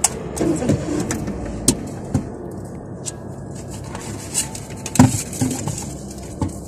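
Lidded plastic drink cups handled in a cardboard carrier: scattered small clicks and knocks as a cup is lifted out, the loudest about five seconds in, over a steady low hum inside a car.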